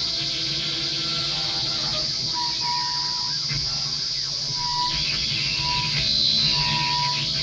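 Live electroacoustic improvisation: a steady high hiss over a low hum. From about two and a half seconds in, short, high steady tones repeat roughly once a second.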